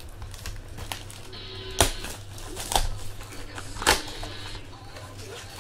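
Sharp cracks and clicks of a cardboard baseball card box and its packs being opened by hand, with three loud snaps about a second apart in the middle.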